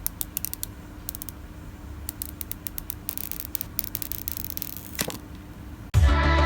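Bursts of quick, sharp clicks and a short rustle about three seconds in, over a faint steady hum, from handling a new phone and its packaging. Loud electronic music cuts in near the end.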